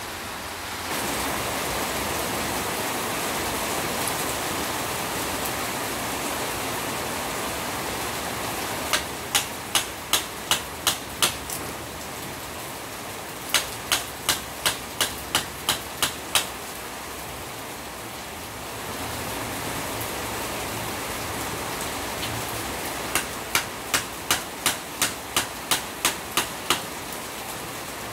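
Steady rain, with three runs of hammer blows on a flat cutting blade driven into a burnt three-phase motor's stator winding: about seven quick strikes some nine seconds in, about nine a few seconds later, and about ten near the end, each run at roughly three strikes a second. The blows are cutting the old coil winding out of the stator so it can be rewound.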